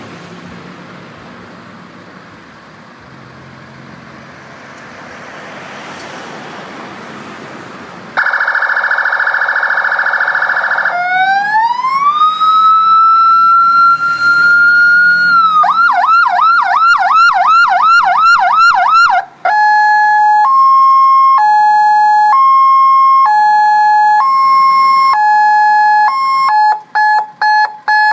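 Electronic siren of an NZ-9200R LED warning light cycling through its tones after about eight seconds of faint background noise: a buzzing horn tone, a wail that rises, holds and falls, a fast yelp of about four sweeps a second, then a hi-lo two-tone that speeds up near the end.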